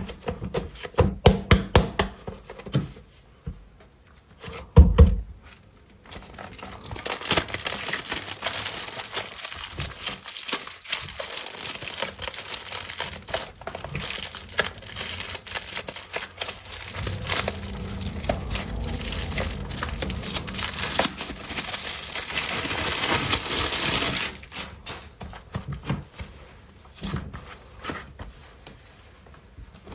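Air-dry clay and its packaging being handled. Light taps and clicks, a thump about five seconds in, then a long stretch of dense crinkling and tearing, followed by scattered light clicks.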